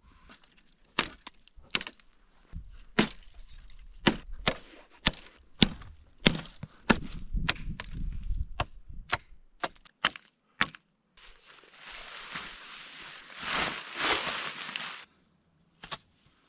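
A nata, a traditional Japanese hatchet, chopping wooden poles: a dozen or so sharp, irregular wooden chops and knocks over about ten seconds, followed by a few seconds of rough scraping and rustling.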